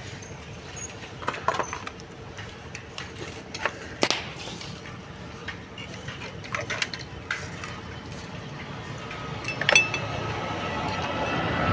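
Scattered metal clinks and taps of tools and parts while rear drum brake shoes and their return springs are being fitted, with a sharper knock about four seconds in and another near the end.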